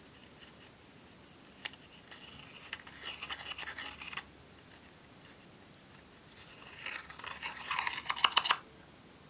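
Metal spatula scraping and crumbling baked eyeshadow out of a plastic compact palette: two bouts of rapid scratching, the second louder and ending in quick sharp scrapes.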